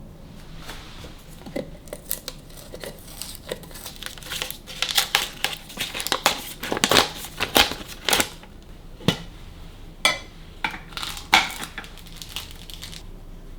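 Crinkling and crackling as something is handled, in a run of sharp crackles with a few light knocks, thickest in the middle and tailing off near the end.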